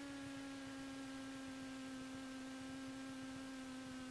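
Faint, steady humming tone with overtones in a Cessna 172's cockpit audio, its pitch sinking slightly as it goes.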